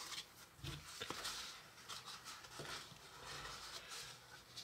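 Faint rubbing and scraping of fingers and a silicone spatula against a plastic mixing bowl as crumbly cookie dough is worked together, with a few light knocks of the bowl.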